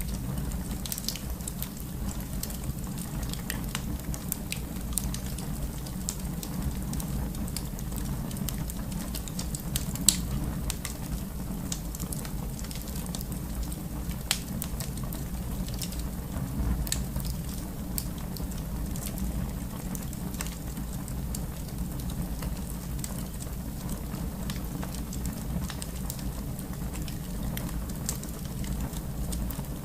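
Fire burning in a fireplace: a steady low rumble of flames with scattered sharp crackles and pops. The loudest pop comes about ten seconds in, and another about fourteen seconds in.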